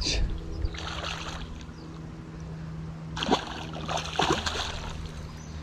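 A hooked pike thrashing at the edge of the bank: water splashing and sloshing in short bursts, at the start and again about three seconds in, over a steady low hum.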